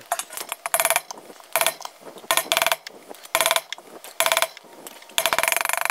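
A copper timpani bowl being struck about six times to force a dent out against a sandbag underneath, each blow a short rattling clatter.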